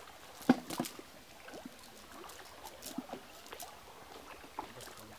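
Wet cast net being handled on muddy ground as fish are picked out of it: scattered clicks and taps, the sharpest about half a second in, over soft rustling.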